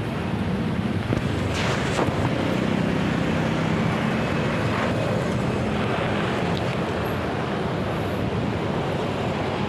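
Steady vehicle traffic noise: engines running, with a vehicle passing about one and a half to two seconds in.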